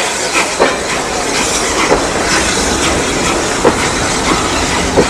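Train of passenger coaches rolling slowly past, its wheels clicking over rail joints with a sharp knock every second or so over a steady rumble, and a brief wheel squeal.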